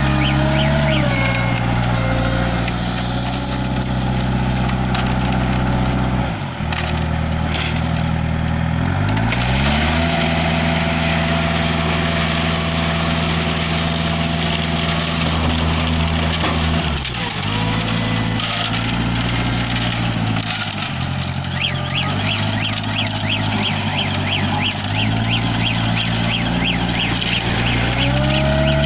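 Self-loading concrete mixer's engine running under changing throttle: its speed drops about six seconds in, climbs back and holds, drops again around seventeen seconds, and rises near the end. A rapid, even high ticking runs through the last third.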